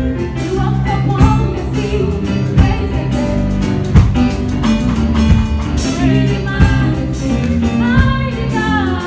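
A woman singing a gospel song through a microphone and PA over a backing track with a bass line and a steady beat. She holds a few long, bending notes near the end.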